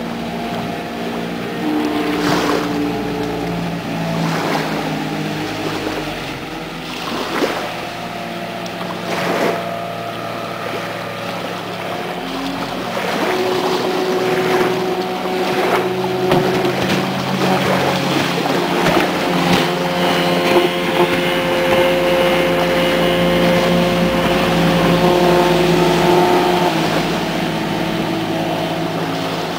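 Speedboat engines running at speed, their engine notes held at several pitches and shifting as the boats pass, over the rush of water and spray from the hulls.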